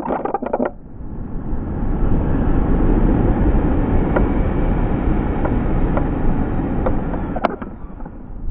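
Rushing wind on the microphone as the slingshot ride's cage is flung into the air, building over the first couple of seconds into a steady rush. A brief rattle of clicks comes at the start.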